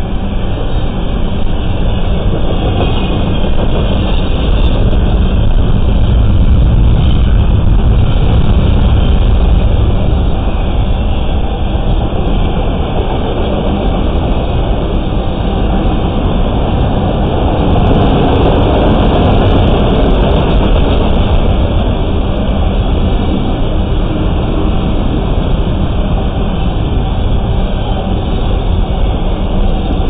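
Freight train cars rolling past close by, first double-stack container cars and then enclosed autorack cars: a steady, loud rumble and rattle of steel wheels on the rails. The wheel noise turns sharper and brighter for a few seconds about two-thirds of the way through.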